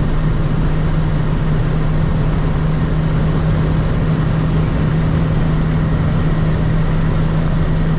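Inside the cabin of a 1992 Volvo 940, its naturally aspirated 2.3-litre eight-valve four-cylinder petrol engine is pulling hard in fifth gear at about 180 km/h, close to its top speed. The engine holds a steady drone under heavy wind and road noise.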